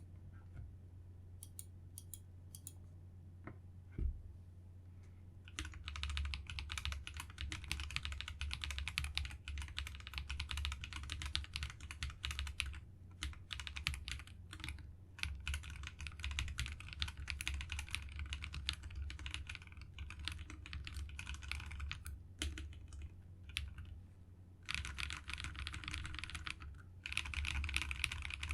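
Typing on a SilverBullet44 mechanical keyboard with AKKO CS Vintage White linear switches, re-sprung with Durock 67 g springs, under AKKO ASA-profile keycaps. After a few scattered key clicks and a single thump about four seconds in, a rapid continuous run of keystrokes begins at about five seconds, with a short lull near the end before another quick flurry.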